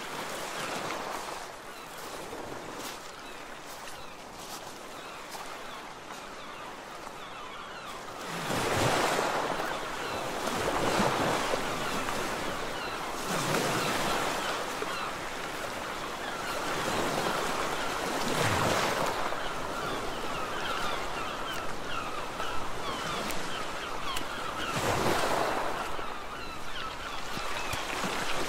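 Sea waves washing onto a rocky shore: a steady surf hiss that swells into several louder surges as waves break, with some wind.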